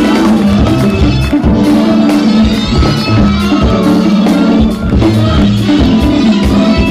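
Live jazz-fusion band playing loudly: drum kit, electric bass, guitar and keyboards driving a steady groove.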